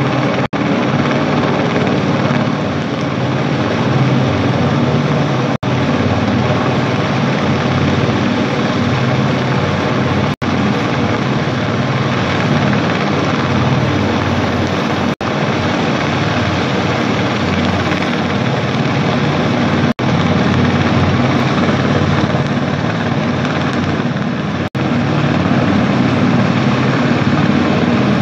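Helicopter hovering, with a steady rotor and engine noise. The sound drops out very briefly about every five seconds.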